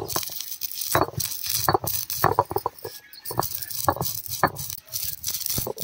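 Stone roller crushing dry coriander seeds and black peppercorns on a flat grinding stone: an irregular run of sharp cracks and crunches, with low knocks of stone on stone.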